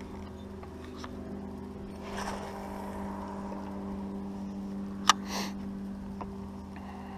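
Steady hum of a small electric motor aboard a bass boat. A soft rustle comes about two seconds in, and a single sharp click about five seconds in.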